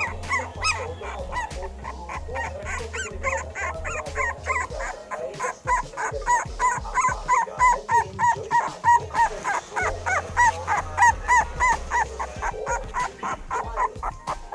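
Young puppies whimpering and yipping in a fast run of short, high-pitched cries, about two or three a second, growing louder around the middle of the stretch.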